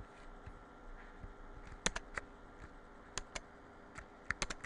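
Scattered clicks of computer keys: a few about two seconds in, single ones after three and four seconds, and a quick run near the end.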